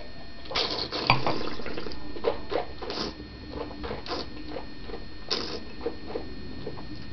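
Red wine being sipped and swished around the mouth in a tasting: a string of short, wet, irregular slurps, the loudest about a second in.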